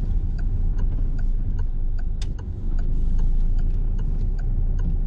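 Car's turn-signal indicator ticking steadily, about two and a half ticks a second, over the low rumble of the engine and tyres heard inside the cabin.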